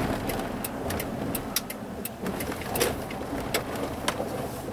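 Vehicle rolling slowly onto gravel, heard from inside the cab: a steady low running rumble with irregular sharp clicks of stones popping under the tyres.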